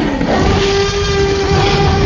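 A steady, horn-like tone held over a low rumble, starting just after a loud boom dies away.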